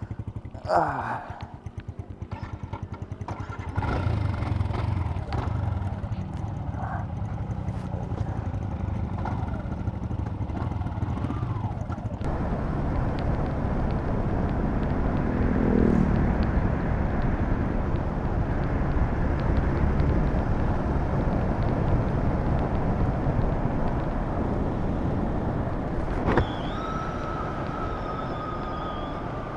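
Yamaha Sniper 150's single-cylinder four-stroke engine idling, then pulling away about four seconds in and running at road speed, with wind noise on the microphone growing as the bike picks up speed. Near the end there is a click, then a steady high whine.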